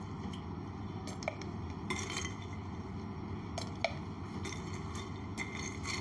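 Ice cubes clinking against a glass as they are dropped into a drink: a few scattered sharp clinks, the sharpest a little before four seconds in, over a steady background hum.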